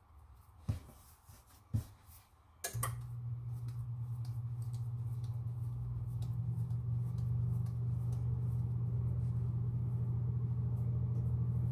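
Two soft knocks, then about three seconds in a click and an electric motor starting up, running with a steady low hum that grows slightly louder.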